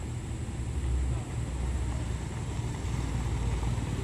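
Heavy truck engine running with a low, steady rumble.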